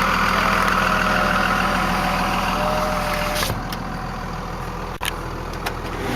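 Cummins 5.9-litre inline-six turbo diesel of a 1998 Dodge Ram 2500 idling steadily. The sound drops a little about three and a half seconds in, and there is a sharp click about five seconds in.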